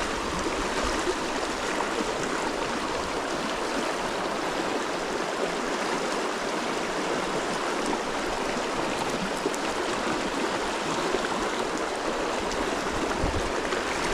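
Mountain stream rushing steadily, a constant even wash of flowing water.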